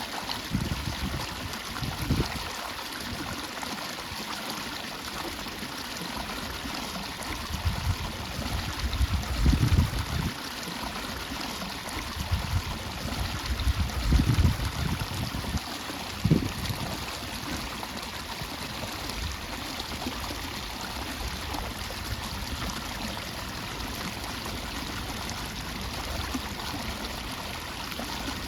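Water running steadily where an inflow drops into a reservoir, an even rushing trickle. A few dull low bumps come around the middle.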